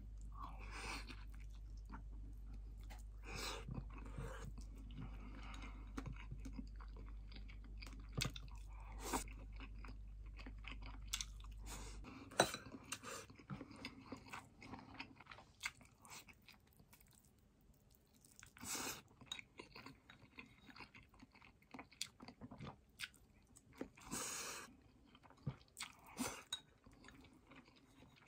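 Close-up eating sounds from a person eating from a ceramic rice bowl with chopsticks: chewing with short clicks and brief bursts scattered throughout. A steady low hum runs underneath and stops about twelve seconds in.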